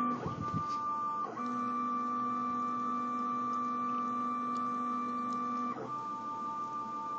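Stepper motors of a homemade LinuxCNC mini mill driving the X and Y stages: a steady pitched whine that breaks and changes pitch with a brief swoop three times as the moves change.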